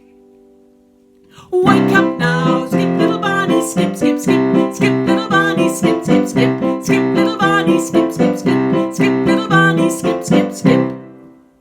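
A held chord fading away. About a second and a half in, lively piano music starts with quick repeated notes, about four to five a second, and stops shortly before the end.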